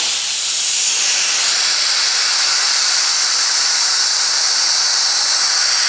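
CO2 venting out through a fill station's open exhaust valve with a loud, steady hiss: the pin-valve tank is being purged after its short chill fill.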